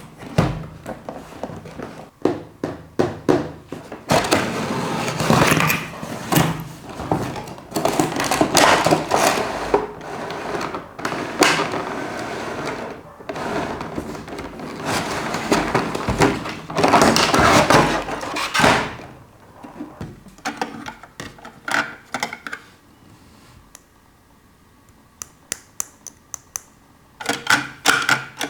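Toy packaging being handled and opened: a long stretch of crinkling, rustling packaging noise in the middle, with series of light clicks and taps before and after it.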